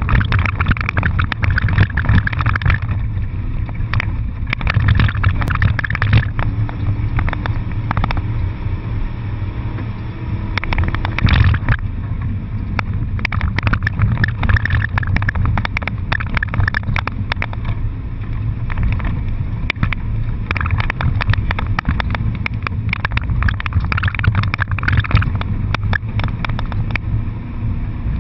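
Car being driven fast, heard from inside the cabin: steady engine and road rumble with continual rattling and buffeting.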